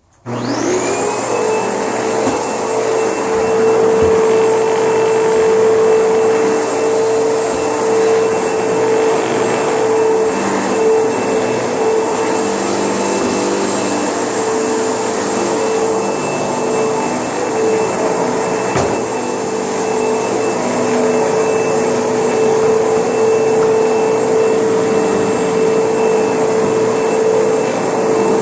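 ProTeam ProGen 15 upright vacuum cleaner switched on: its motor spins up within about half a second, then runs steadily with a steady hum and a high whine.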